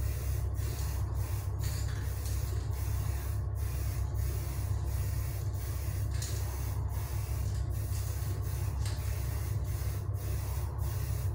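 Spray painting: a steady hiss of paint spray, broken by frequent short pauses, over a steady low hum. A covering coat of paint is being sprayed onto plastic airsoft magazines.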